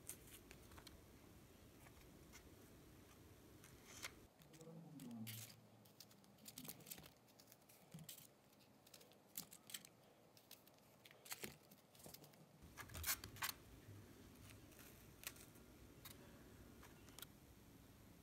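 Faint, irregular snips and clicks of a small knife cutting the green tops off fresh strawberries.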